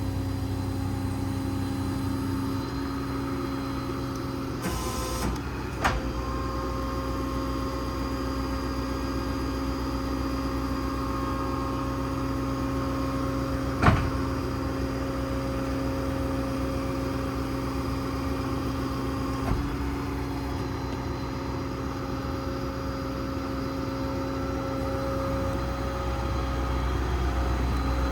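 A 6.7 Power Stroke diesel engine running steadily, with a steady mechanical whine whose pitch shifts a few times. Several short knocks, the loudest about 14 seconds in.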